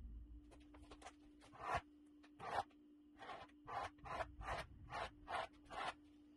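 Flat hand tool scraping across a concrete countertop in about nine short strokes, spreading a coat of epoxy. A faint steady hum runs underneath.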